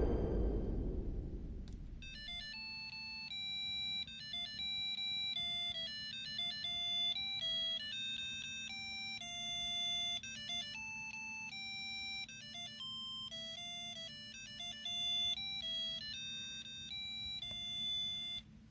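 PC speaker of a homebuilt 8088 breadboard computer playing a simple one-note-at-a-time tune of buzzy electronic beeps, not very loud, the pitch changing every fraction of a second. The tune stops abruptly near the end. A louder sound fades away over the first two seconds.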